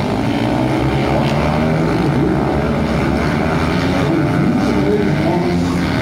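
A pack of racing motorcycles running on the track, several engines sounding together in a steady drone whose overlapping notes rise and fall.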